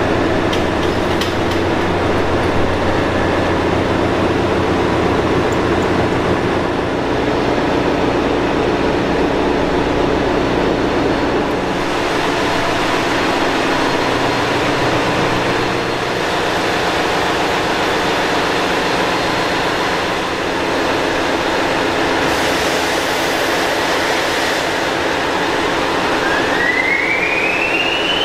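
Steady machinery noise in a ship's engine room, with several constant hums. Near the end a whine rises steeply in pitch as the second diesel generator is started.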